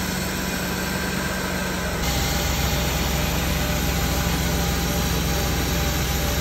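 Mercedes-Benz engine with Bosch CIS fuel injection idling steadily just after starting, its new fuel accumulator fitted in place of one with a ruptured, leaking diaphragm. About two seconds in the sound steps up slightly louder and stays steady.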